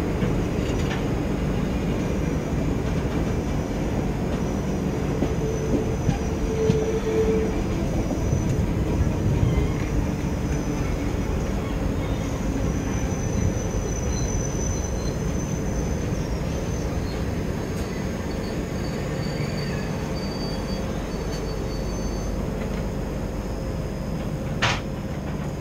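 A moving train's rumble and wheel-on-rail noise heard from an open coach doorway, with thin high-pitched wheel squeal through the middle part. A sharp click comes near the end.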